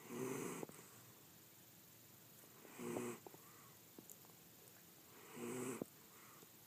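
Snoring: three rasping snores on slow, regular breaths, about two and a half seconds apart.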